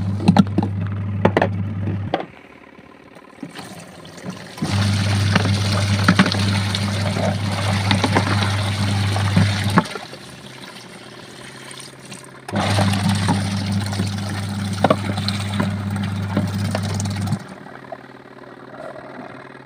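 Adler AD8051 mini washing machine agitating on its gentle wool cycle: the wash motor hums in spells of about five seconds, stopping for two to three seconds between them, while water sloshes and splashes in the tub.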